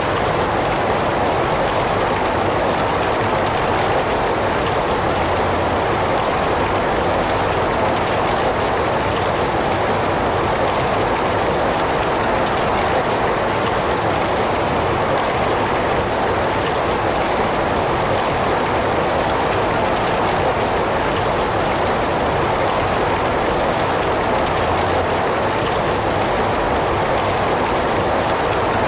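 Heavy rain falling in a steady, even hiss, with no single drops or thunder standing out.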